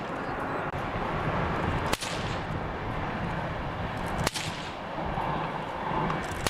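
Bullwhip cracking at small targets on a table: two sharp cracks about two seconds apart, and a third right at the end.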